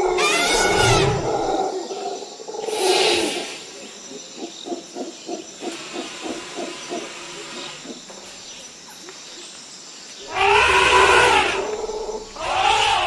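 African elephant calls: loud roars that rise and fall in pitch, one at the start, one about three seconds in and two near the end, with a run of short pulsed grunts at about four a second in between.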